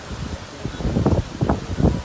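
Strong, gusty tropical-storm wind buffeting the microphone in uneven low gusts, several a second.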